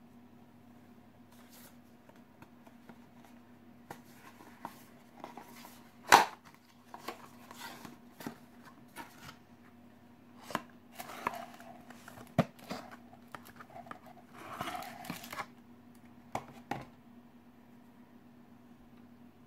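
Cardboard packaging and paper being handled and opened by hand: scattered taps, clicks and rustles. The loudest is a sharp knock about six seconds in, with another about twelve seconds in.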